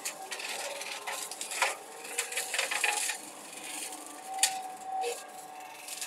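Excavator running, with a steady hydraulic whine and several sharp metallic clanks and rattles as the upper structure swings.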